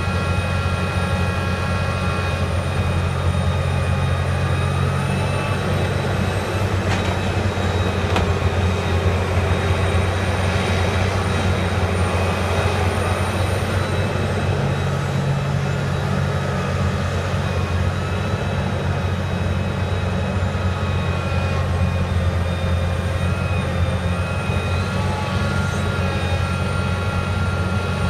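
Liebherr R 984 mining excavator running steadily under working load as it digs and swings: a deep diesel drone with a steady high whine over it.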